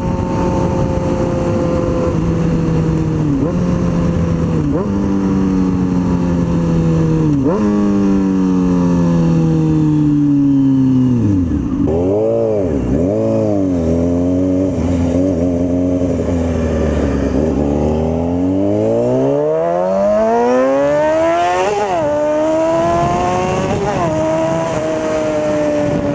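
Honda CBR600F4i's inline-four engine through a Coffman aftermarket exhaust while riding: the revs fall away through several quick gear changes, sink low and waver as the bike slows, then climb steeply under hard acceleration with two sharp upshifts before easing off.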